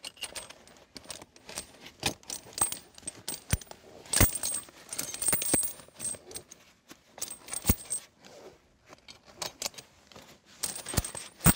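Heavy-duty steel tractor tire chains clinking and rattling as the links are handled and fastened by hand: a run of irregular, sharp metal clinks.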